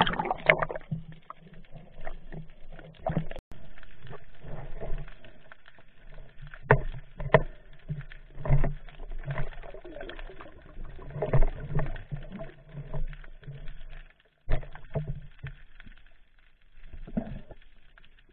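Water noise at a submerged camera: sloshing and bubbling that swells and fades unevenly, with irregular knocks and thumps from the camera being handled.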